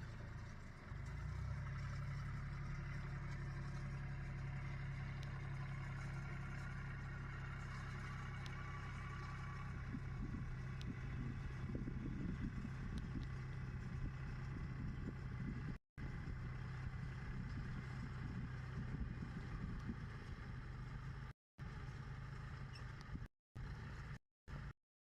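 Tractor engine running steadily as it works a John Deere baler, with a rougher clattering stretch about halfway through. The sound cuts out briefly several times near the end.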